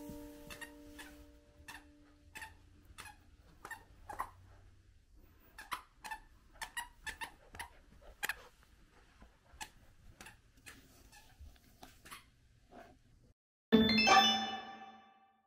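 Irregular light clicks and taps from a Samoyed puppy playing with its toy, without any clear squeak. About fourteen seconds in, a loud musical chord rings out and fades.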